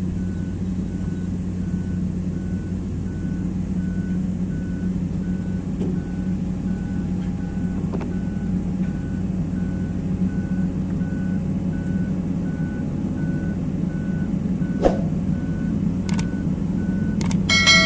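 Excavator diesel engine running steadily while a warning alarm beeps over and over, about twice a second. A few sharp metallic knocks come near the end.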